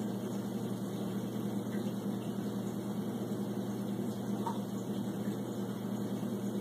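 Aquarium filter running with a steady low hum.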